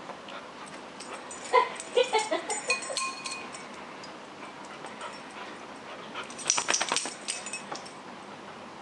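Dogs at play: a quick run of short dog calls about a second and a half in, then a brief flurry of sharp clicks and light jingling around six and a half seconds.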